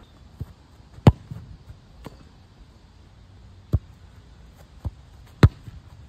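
Football being struck and bouncing on grass: six sharp thuds at uneven intervals, with the two loudest about a second in and near the end.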